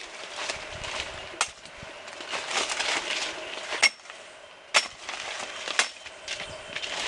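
Four sharp snaps or clicks spaced a second or so apart among rustling, as branches are cut back from a tree.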